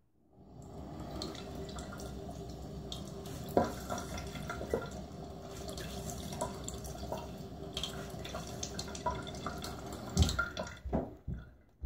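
Bathroom tap running steadily into a sink while hands splash water onto a face. The flow stops about ten seconds in, followed by a few knocks.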